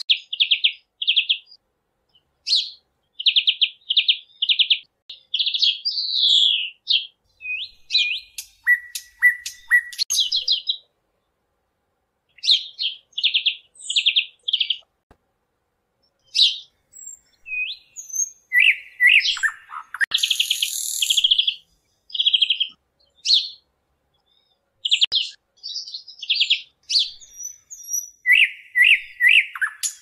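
Small parrot chirping: runs of short, high chirps and trills broken by brief pauses, with one harsher screech about two-thirds of the way through.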